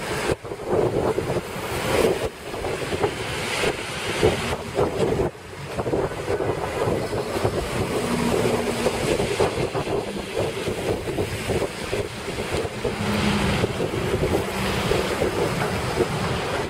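Wind buffeting the microphone over a steady rushing wash of outdoor street noise, with a faint low hum briefly about halfway through and again later.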